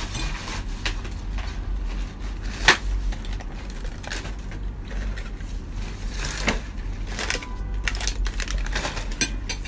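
A person eating instant noodles with a fork: slurping noodle strands and chewing, with scattered sharp clicks of the fork against the plate, one loud click about two and a half seconds in.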